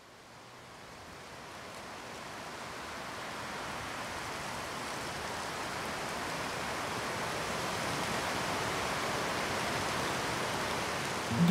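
A steady rushing hiss with no distinct events that slowly swells louder throughout, like a fade-in.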